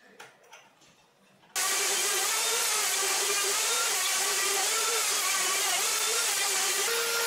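A few faint clicks as a bit is handled and fitted into a Bosch plunge router. Then, about a second and a half in, the router cuts in loud and runs steadily while routing across the oak end-grain slab, its hum wavering in pitch under the load of the cut. Near the end the pitch steadies a little higher.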